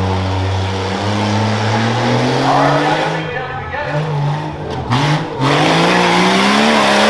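Rough truck's engine running hard on a dirt obstacle course: it holds steady, climbs in pitch, drops sharply about three seconds in, cuts off briefly a couple of times as the throttle is lifted, then climbs again and drops at the end.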